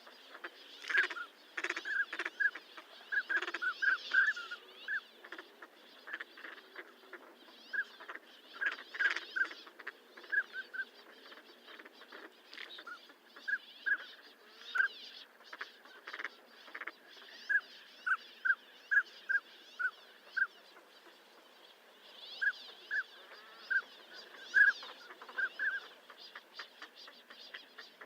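Northern pintail drakes calling: many short whistled notes in quick irregular runs of two to five, with brief pauses between runs.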